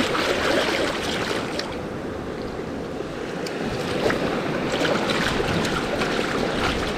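Salt water sloshing with irregular small splashes as mud crab halves are rinsed by hand to wash out the guts.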